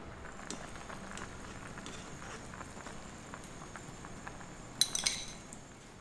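A metal utensil clinking against a cooking pot: light scattered ticks throughout, and about five seconds in a quick cluster of sharp, ringing clinks.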